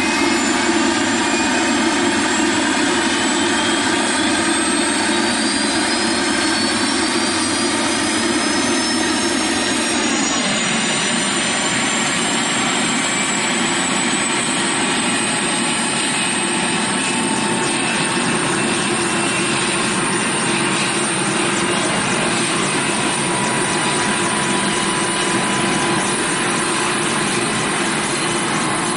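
Bell 206 JetRanger's turbine engine spooling up: a whine that rises steadily in pitch over the first fifteen seconds or so, then holds high and steady over the running engine. A lower part of the sound drops away about ten seconds in.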